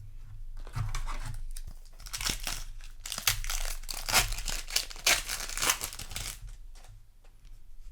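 Foil booster-pack wrapper being torn open and crinkled, a run of irregular crackling tears about two to six seconds in.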